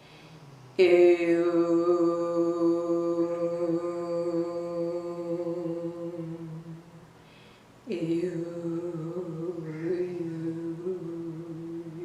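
Qigong kidney healing sound: a voice chanting a long held 'oo' (the 'U' sound) twice, each for about five seconds, the first starting sharply about a second in and the second about eight seconds in with a slight waver. A steady low drone sounds beneath.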